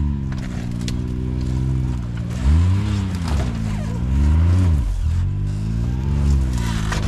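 Turbocharged side-by-side UTV engine working at low speed on a rough trail, with the throttle blipped so the revs rise and fall repeatedly: up about two and a half seconds in, down, up again around four and a half seconds, a sharp drop near five seconds, then a smaller rise toward the end.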